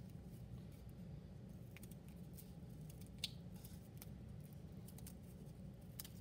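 Scissors snipping through folded computer paper, several layers at once: a few faint, sparse snips, the sharpest a little past three seconds in, over a low steady room hum.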